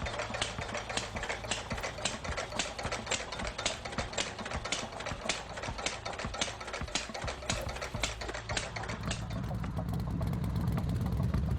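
Jeep engine running with a regular knock, about three to four a second; a deeper rumble swells near the end.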